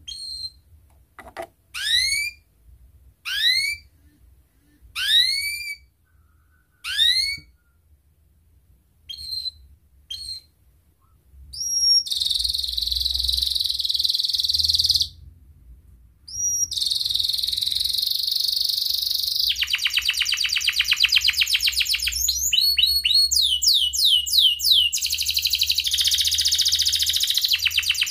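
Domestic canary singing: first a string of rising whistled notes about every second and a half, then a few short chirps. About halfway through it breaks into long, fast rolling trills and rapid runs of notes.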